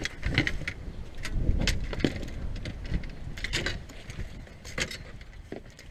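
Irregular clicks, knocks and rattles of things being handled, over a low rumble.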